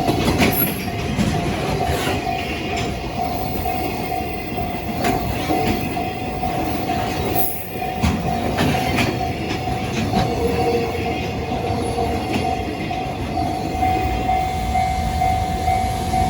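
Freight train rolling past a level crossing, its wheels rumbling with scattered clicks over the rail joints. The crossing's warning alarm rings steadily throughout.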